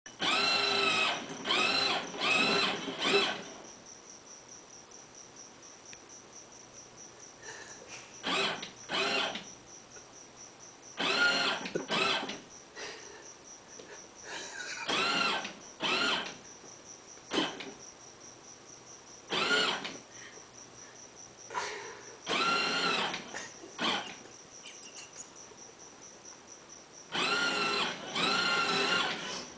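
Ride-on toy train running on its track, giving short rising-and-falling whines in groups of two to four, with quieter stretches between.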